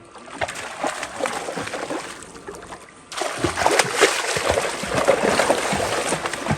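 Water splashing and sloshing with crackly spatters, louder after a sudden jump about three seconds in.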